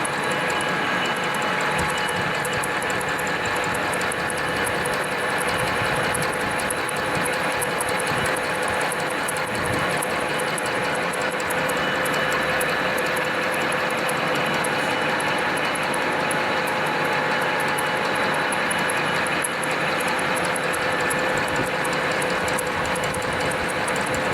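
Metal lathe running under power, a steady mechanical whir with a gear whine and a fine rapid ticking.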